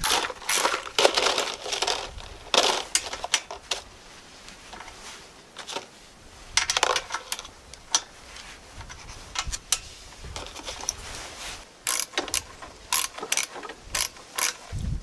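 Hand ratchet and socket clicking and clinking against metal as bolts are fitted to a small engine's shroud. Clusters of sharp clicks, with a quicker run of single clicks near the end.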